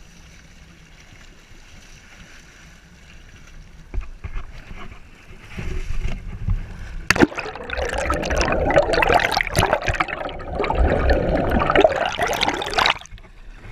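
Water splashing and gurgling right at the camera. It builds from about halfway in into a loud rushing stretch that cuts off suddenly near the end.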